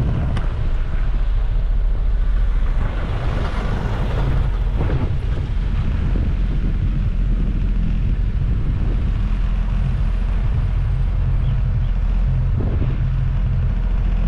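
Steady low engine and road noise of a moving vehicle.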